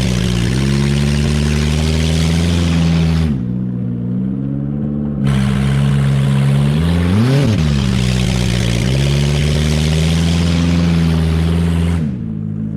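Car engine running, revved up and back down once about halfway through, with a rushing noise over it that drops out for a couple of seconds.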